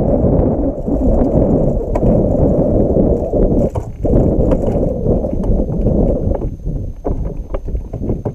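Wind buffeting the kayak-mounted camera's microphone, a loud, steady low rumble, with scattered light clicks and knocks from the kayak and fishing gear.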